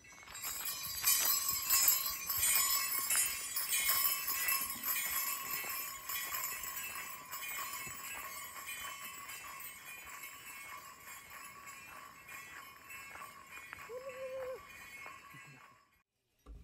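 Bells on a powwow dancer's regalia jingling in a steady rhythm with the dance steps, fading away over the last few seconds.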